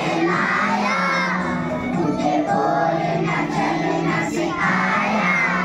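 A large group of schoolchildren singing a prayer song together in unison, their voices loud and partly shouted.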